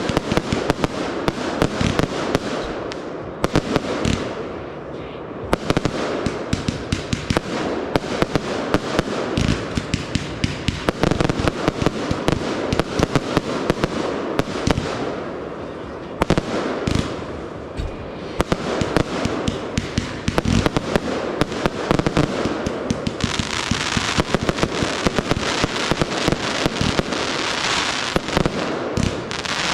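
Consumer fireworks going off in quick succession: a dense string of sharp bangs and pops, with a stretch of thicker crackling about three-quarters of the way through.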